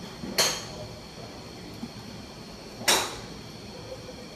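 Two sharp golf club strikes on balls from neighbouring bays of a driving range, about two and a half seconds apart, each with a short ringing tail, over a steady thin high tone.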